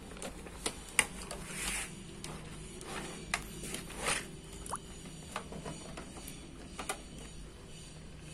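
Scattered clicks and short rustles of cables and plugs being handled and connected at a video recorder, the sharpest click about a second in, over a low steady hum.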